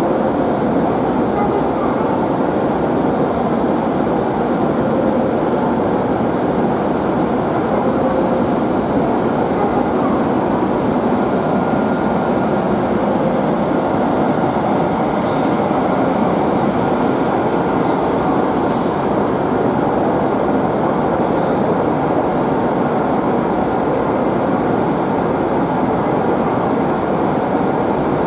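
E7-series Shinkansen train running along the station platform: a steady, loud rumble and rush of the moving train that holds level throughout.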